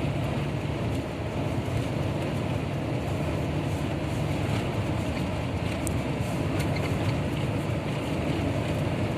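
Steady road noise of a car driving, heard from inside the cabin: a continuous low rumble of engine and tyres with some wind noise.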